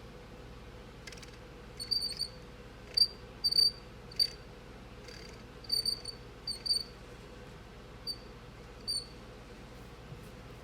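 Cricket chirping: short high chirps, singly and in quick twos and threes at irregular gaps, over a faint steady hum.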